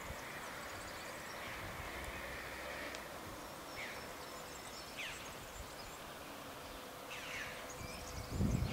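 Rural hillside ambience: a steady insect drone with a few short, falling bird chirps scattered through it, and a low rumble near the end.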